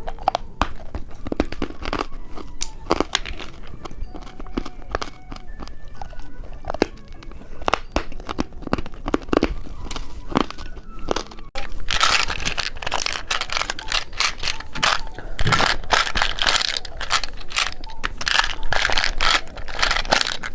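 Scattered sharp clicks and taps, then, about halfway in, loud dense crinkling and crackling of plastic snack packaging being handled and torn open.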